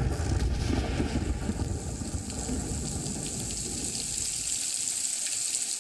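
Rain sound effect: a steady hiss of heavy rainfall with a low rumble under it, strongest in the first couple of seconds, fading out at the end.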